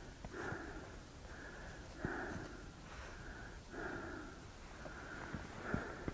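A person breathing close to the microphone, a soft sniffing in-and-out about every two seconds.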